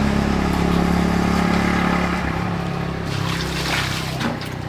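Motorbike engine running steadily, slowly getting quieter.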